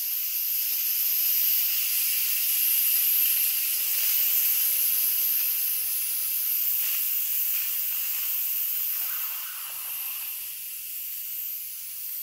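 Instant Pot electric pressure cooker's steam-release valve hissing steadily as the remaining pressure is vented through it. The hiss eases a little about ten seconds in.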